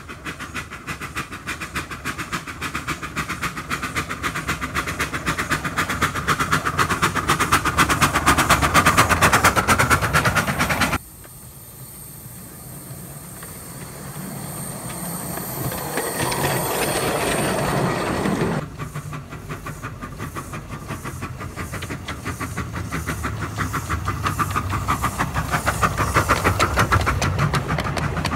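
Miniature steam locomotive hauling a passenger train, with rapid rhythmic beats and wheel clatter on the rails that grow louder as it approaches. The sound breaks off abruptly twice and starts again, building each time.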